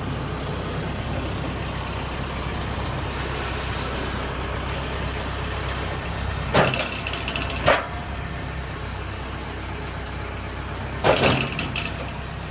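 A heavy engine idling steadily, with sudden loud noisy bursts about six and a half, seven and a half and eleven seconds in.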